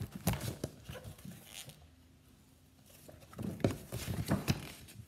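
Pages of a book being turned and handled: quick rustling and light taps in two short clusters, with a brief lull between them.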